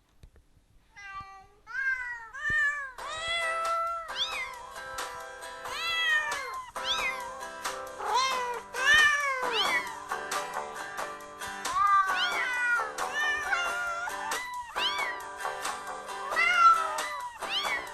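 Kitten meowing over and over, each call rising and falling in pitch, crying for its absent mother. Background music with held tones comes in about three seconds in, under the meows.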